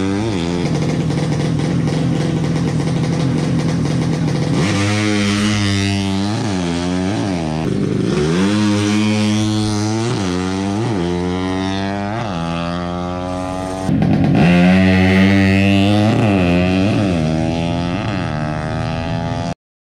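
Drag-racing motorcycle engines held at high revs, then accelerating hard up through the gears, the pitch climbing and dropping back at each shift about once a second. The engine sound gets louder about two-thirds of the way through and cuts off abruptly near the end.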